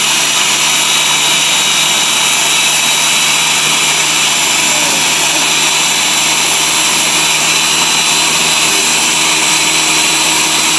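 Ninja blender motor running steadily at full speed, its blades churning a thick fruit smoothie mix in the jar. A loud, even whine with a few steady tones that holds without a break.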